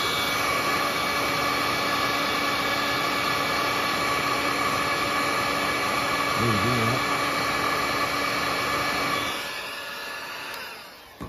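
Small electric motor running at a steady high whine, then switched off about nine seconds in and winding down, its pitch falling as it slows.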